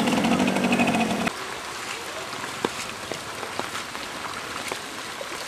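Heavy monsoon rain falling, an even hiss with scattered sharp drop ticks. For about the first second a steady low hum is heard, which cuts off suddenly.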